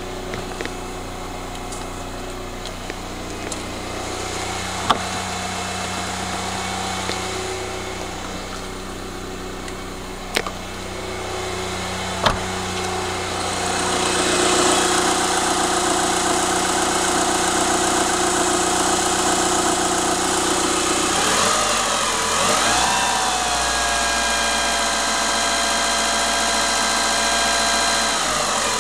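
Mitsubishi RVR engine running with a knock that the owner calls connecting-rod knock and also hydraulic lifter clatter. There are a few sharp clicks in the first half. About two-thirds of the way through, the engine speed wavers and settles at a new level.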